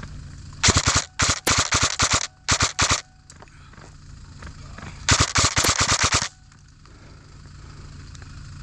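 Airsoft gun firing on full auto: several short rapid bursts in the first three seconds, then one longer burst of about a second around the middle.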